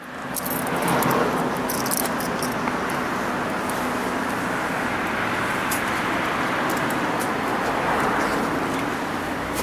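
Steady road traffic noise, a continuous even rush of vehicles, with a few light clicks.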